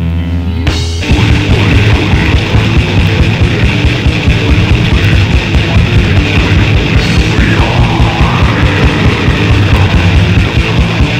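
Grindcore/death metal recording: a held distorted chord, then about a second in the full band breaks in with very fast drumming under distorted guitars.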